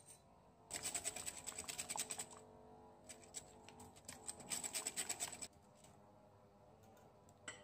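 Wire whisk beating egg white and brown sugar in a glass bowl, its wires clicking rapidly against the glass in two bursts of a second or so each, over faint background music.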